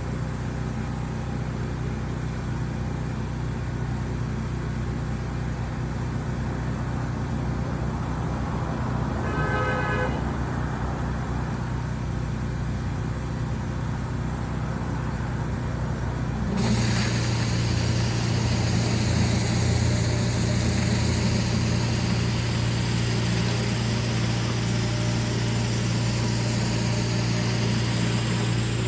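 Gas-engine pressure washer running steadily, with a brief horn toot about a third of the way in. About halfway through, the sound cuts abruptly to a louder run with a high steady whine.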